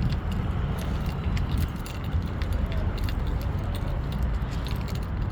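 Steady low outdoor rumble with many light clicks and jingles scattered through it.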